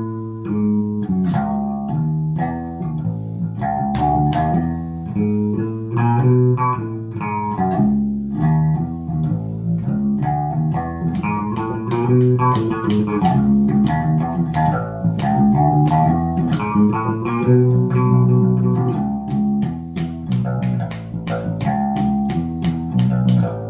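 Bass guitar playing the verse line of a ska song slowly, a steady run of plucked notes moving through C sharp, A, E and B with chromatic passing notes between them.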